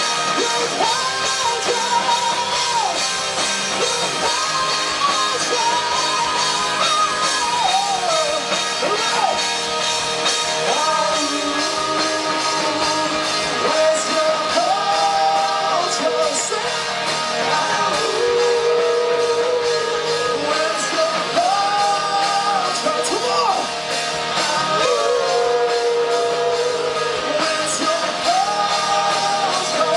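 Live rock band playing loudly, with full drums and distorted instruments under a lead melody of long held notes that bend and slide in pitch.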